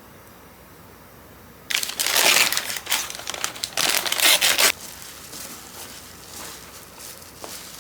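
A packet being crinkled and crumpled by hand, in a loud stretch of about three seconds that starts nearly two seconds in.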